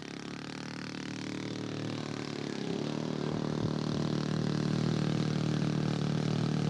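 Radio-controlled scale model airplane engine running at a steady, fairly constant pitch, growing steadily louder as the plane comes closer.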